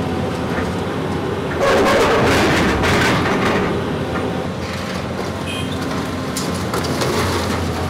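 Tracked hydraulic excavator's diesel engine running steadily as its bucket tears down a concrete building. Broken concrete and rubble crash down loudly from about one and a half seconds in to about three seconds, with scattered knocks after.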